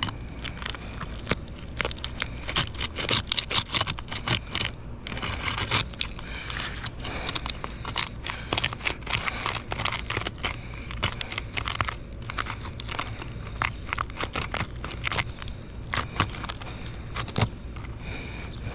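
Roof shingle crackling and tearing as it is pried loose, in irregular bursts of small cracks and scrapes: the sealed shingle is tearing apart rather than lifting cleanly, a failed repairability test.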